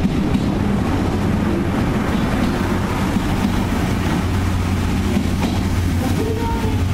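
Blue sleeper-train passenger coaches rolling past on departure: a steady rumble of steel wheels on the rails under a constant low hum.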